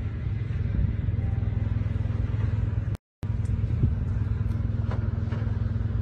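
An engine running steadily with a low, even drone. The sound cuts out completely for a moment about three seconds in.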